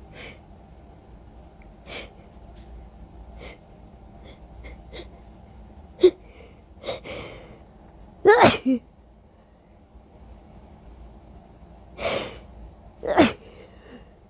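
Allergy sneezing: a few faint sniffles, then three loud sneezes, about six seconds in, about eight and a half seconds in, and near the end. The last two each follow a gasping breath in.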